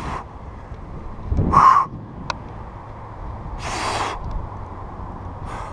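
A person breathing hard right at the microphone: four heavy exhales about two seconds apart, the second the loudest, over wind rumble on the mic, with one sharp click in the middle.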